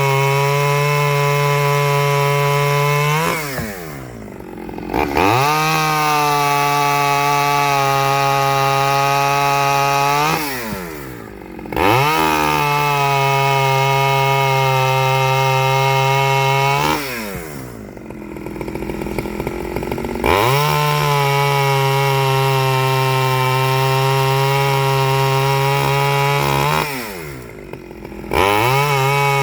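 Stihl 009L two-stroke chainsaw on its standard carburettor, held at full throttle through wood in long steady runs. Four times the revs drop away as the throttle is let off, then climb back up.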